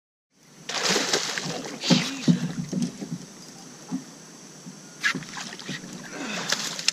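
A hooked bowfin thrashing and splashing at the surface beside a boat as it is netted. The splashing starts abruptly about half a second in and comes in uneven bursts, loudest around two seconds in and again near the end.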